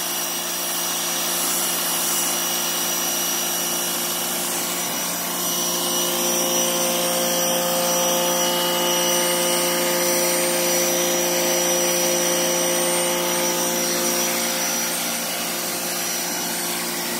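Greenworks GPW1702 1700 PSI electric pressure washer running steadily, its motor and pump humming at a constant pitch under the hiss of the water jet spraying onto concrete decking.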